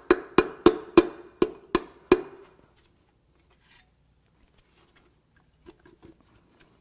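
Hammer striking a brass drift held on a connecting-rod cap to knock the cap loose: about seven sharp, ringing metal strikes, roughly three a second, stopping a little over two seconds in. Faint small handling clicks follow.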